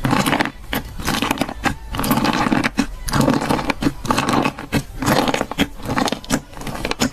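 Slime being squished and worked by hand, making dense, irregular crunching and crackling.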